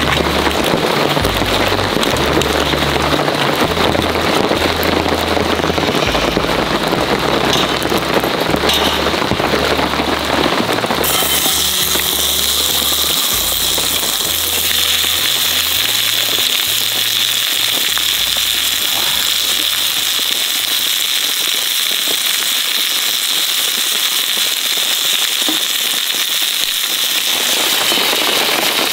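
Rain pattering densely with a wood fire crackling. From about 11 seconds in, a lamb chop sizzles and pops in hot fat in a steel frying pan over the fire, a bright steady sizzle.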